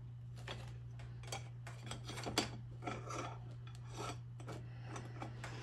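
Loose metal gun parts being handled on a tabletop: scattered light scrapes, rubs and small clicks of steel tubes and barrel pieces being picked up and set down, over a steady low hum.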